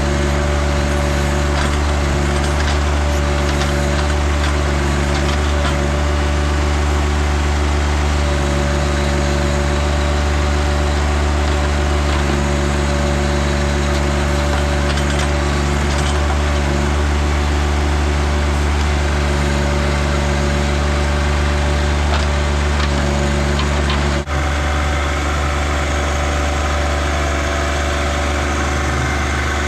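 A John Deere tractor's engine runs steadily while working the backhoe attachment to dig a trench. There is a brief dropout late on, and after it the engine note shifts slightly.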